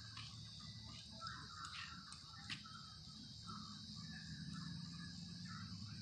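Faint outdoor ambience: a steady high drone of insects, with scattered bird chirps in the first few seconds and a low rumble underneath.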